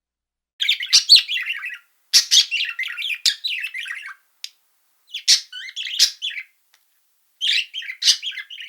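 A small bird chirping in four quick bursts of rapid, high twittering notes, with short gaps of silence between them.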